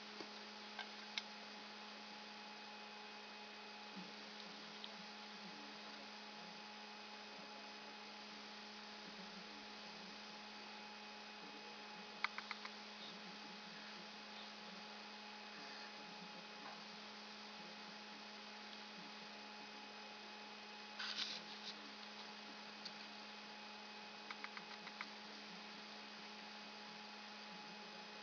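A steady electrical hum with a few faint clicks scattered through it.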